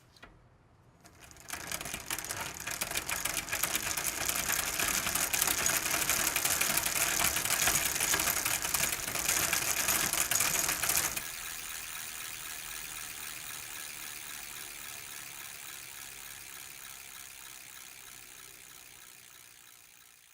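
Bicycle being pedalled with an old drivetrain chain: a dense, fast clatter of chain links and gears. About halfway through it drops abruptly to a quieter, steady ticking that fades away.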